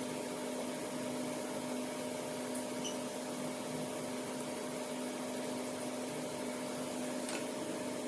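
Steady electric machine hum, a drone of several steady low tones over an even hiss, with a couple of faint clicks.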